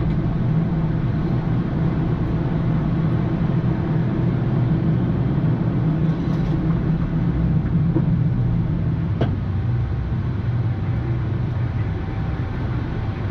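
Steady rumble and air noise on a Boeing 787-9 flight deck during the climb just after takeoff, with a faint click about nine seconds in.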